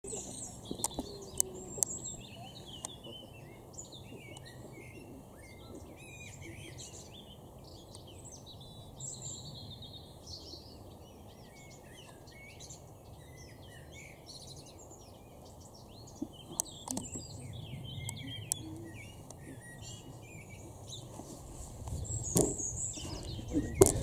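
Several wild birds singing and calling, a busy spring chorus of chirps and warbles, over a steady low rumble. A few sharp clicks come near the start and again near the end, where the rumble swells briefly.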